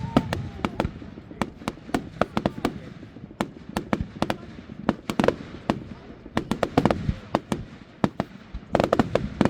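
Fireworks display: an irregular, rapid run of sharp bangs and crackles, several a second, thickest near the end.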